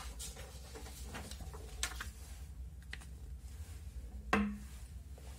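Sheets of paper being handled and laid on a wooden table: a few light taps and rustles, the loudest about four seconds in, over a low steady hum.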